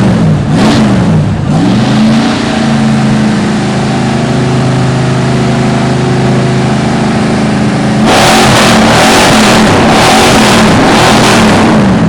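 Ford F100 pickup's engine revving loud: a few quick blips up and down in the first second and a half, then held at a steady speed for several seconds. From about two-thirds of the way through, it is blipped up and down repeatedly again, louder.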